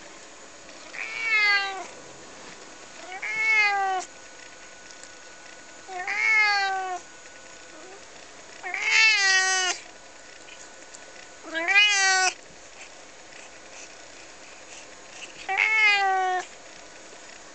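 A long-haired colourpoint cat meowing repeatedly: six drawn-out meows, each about a second long, rising then falling in pitch, a few seconds apart. The two in the middle are the loudest.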